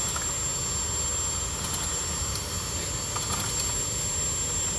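A small engine running steadily, with a low rumble, a thin high whine and a few light clicks.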